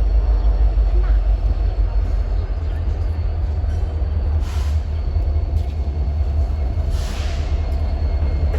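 Freight train rolling past on the rails: a steady, heavy low rumble of the cars with a faint thin wheel squeal, and brief hissing rushes of noise about four and a half and seven seconds in.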